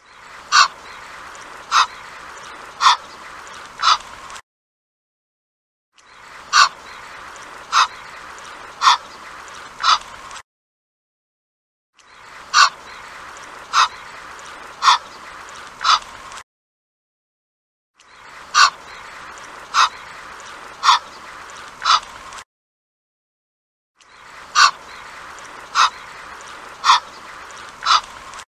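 Egyptian goose calling: four short, sharp calls about a second apart over a steady hiss. The same four-call phrase repeats five times, every six seconds, with a second and a half of dead silence between.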